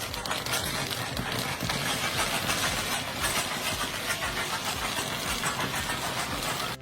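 A heavy engine-driven machine running loudly, with a dense, fast rattling clatter over a low engine drone.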